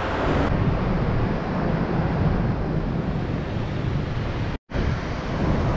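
Steady rushing roar of a large waterfall close by, with a brief dropout to silence about three-quarters of the way through.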